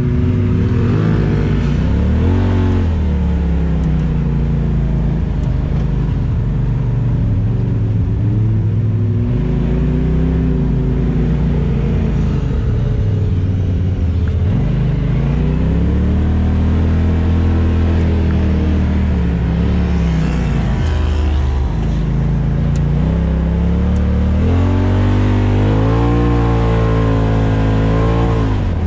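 Off-road vehicle engine running under load, its pitch rising and falling several times as the throttle is opened and eased off, with quicker revs near the end.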